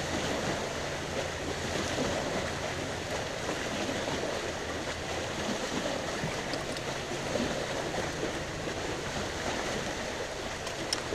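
Steady rushing noise of water and wind around a fishing boat, with a faint low hum underneath.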